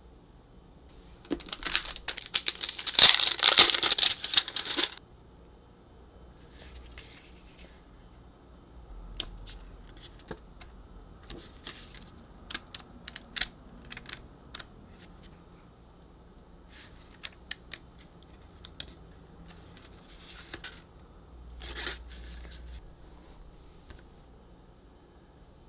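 Paper and card being handled: a loud stretch of crinkling and rustling a second or so in, then scattered soft flicks and taps as a small photobook's pages are thumbed and turned.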